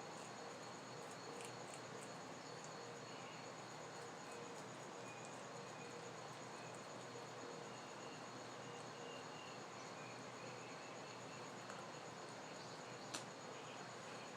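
Steady high-pitched trill of crickets chirping, with a few faint clicks.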